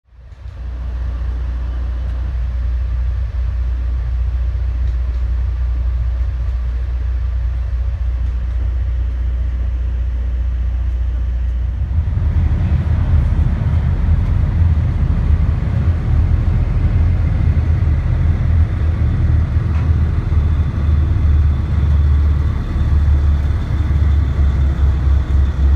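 Low, steady drone of a passenger boat's engines under way. About twelve seconds in it gets louder and more uneven.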